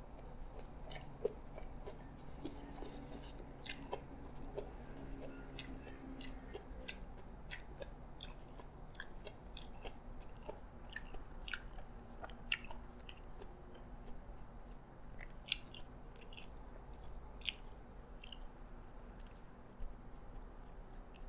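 Close-up chewing of a mouthful of yee sang, the shredded raw-vegetable and salmon salad, with frequent small crunches and wet clicks.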